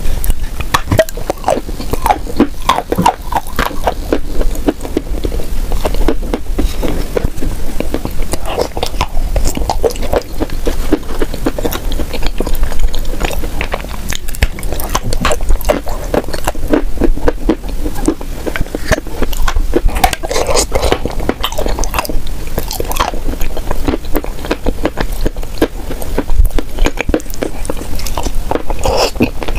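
Close-miked biting and chewing of a soft, sauce-coated food, with a steady stream of small wet mouth clicks and smacks.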